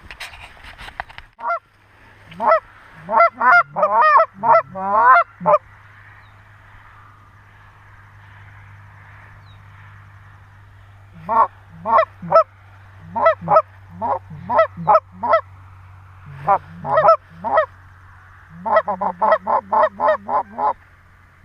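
Canada goose honking: loud, sharp honks in two loose runs, then a fast, even string of about five honks a second near the end, as geese are worked in toward a hunting blind.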